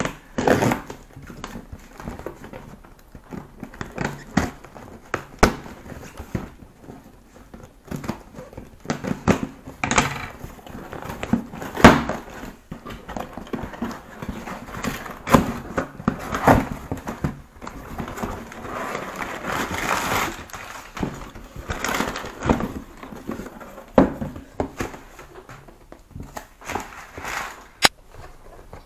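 A taped cardboard shipping box being opened by hand: packing tape peeling and tearing, cardboard flaps rustling and creaking, with irregular knocks and clicks of the box against a wooden table.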